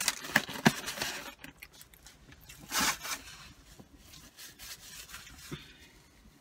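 A foam clamshell takeout box being handled and shut, with sharp creaks and clicks in the first second or so. Then a paper napkin rustling and crumpling, loudest about three seconds in.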